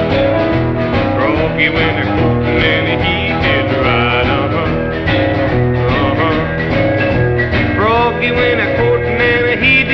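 Music: an instrumental break in a vintage country-flavoured rock and roll record, with guitar leading over the band and short bent notes.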